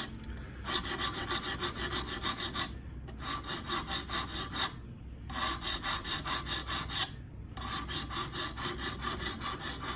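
Sharpening stone on a guided system rasping back and forth across a knife's steel edge in quick strokes, about three or four a second, with brief pauses about three, five and seven seconds in: the bevel is being reprofiled.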